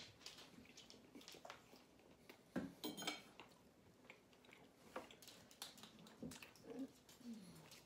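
Faint clinks and knocks of a metal fork against a ceramic dinner plate, the sharpest a couple of seconds in as the fork is set down.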